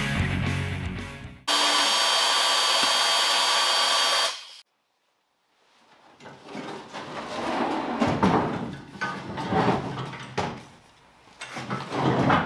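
Rock guitar music ends, followed by a steady held sound that cuts off about four seconds in. After a second of silence come irregular clunks and rustling as tools and hardware are handled in a pickup truck's bed.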